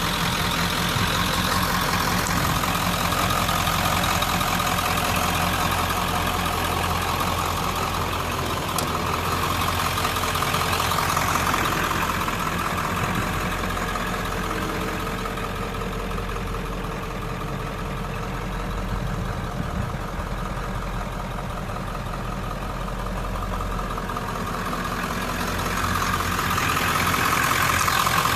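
Ford F-250's 7.3-litre Powerstroke turbo-diesel V8 idling steadily, a little quieter and duller midway through.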